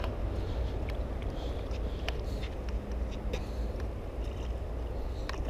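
Steady low outdoor rumble with scattered faint clicks and a faint hum in the middle, with no clear single source.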